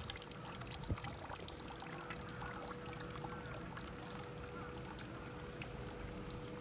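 Faint outdoor ambience along a city street: a steady thin hum, scattered light clicks and one sharp knock about a second in.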